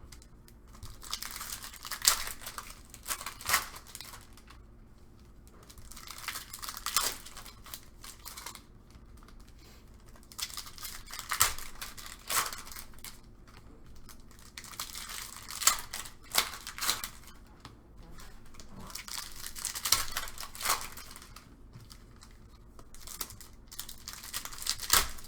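Trading-card pack wrappers being torn open and crinkled by hand, in repeated bursts of crackling with a few sharp snaps.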